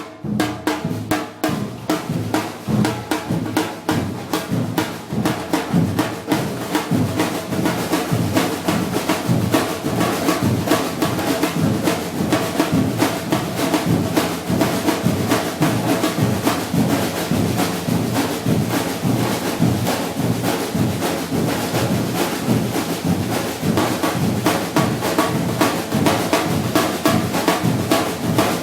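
Batucada drum ensemble playing together: bass drums and snare drums beating a steady, dense rhythm.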